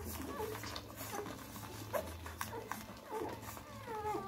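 Twelve-day-old Dalmatian puppies nursing, giving short high squeaks and whimpers now and then, over a steady low hum.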